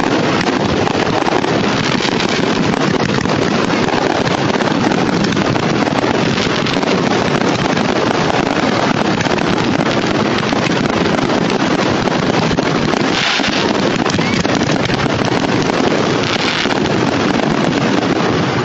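Fireworks barrage: many shells and crackles going off at once, merging into one continuous loud rumble and crackle with no single bang standing out.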